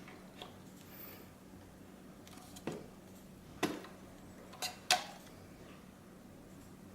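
Four sharp clicks and knocks from the aftermarket head unit's plastic connectors and cable being handled, the last two close together and loudest, over a faint steady hum.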